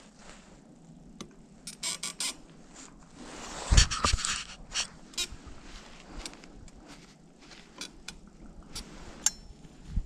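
Gear being handled in a metal tree stand: scattered clicks and knocks of the rifle and stand's metal rail, with clothing rustle between them. There is a louder thump about four seconds in, and a sharp metallic click with a brief ring near the end.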